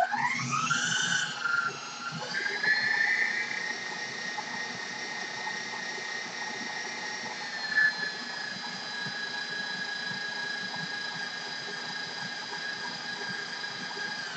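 Stand mixer motor running on high while beating cookie dough: a whine that climbs in pitch over the first two seconds as the motor speeds up, then holds steady.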